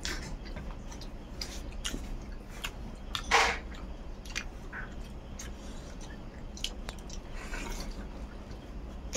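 Chewing and mouth sounds of a person eating rice by hand, with scattered small clicks and smacks. There is one louder, wet mouth sound about three seconds in.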